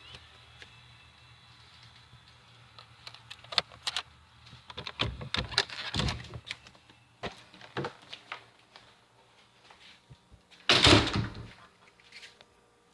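A cabin door being unlocked and opened: scattered clicks, knocks and thunks of the handle and lock, with a louder rush of noise lasting under a second near the end.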